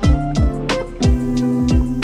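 Background music with a guitar and a steady beat.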